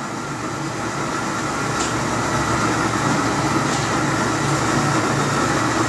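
Cordless drill driving a small roller grain mill, crushing malted barley fed from a bottle hopper: a steady motor whine over the noise of the grain being milled.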